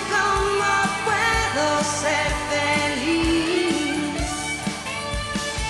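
A rock-blues song played by a band, a woman's voice holding and sliding between long notes over electric guitar and a steady kick-drum beat.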